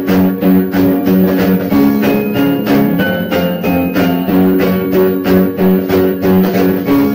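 Instrumental background music: a bright tune of short, evenly spaced notes over a steady beat.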